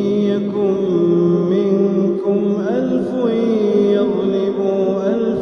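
A single voice reciting the Quran in a melodic, chanted style, holding long notes with ornamented rises and falls in pitch.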